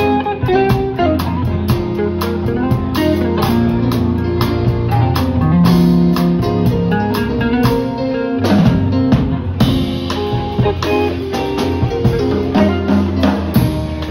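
Live band of electric guitar, electronic keyboard and drum kit playing together, the cymbals keeping a steady beat.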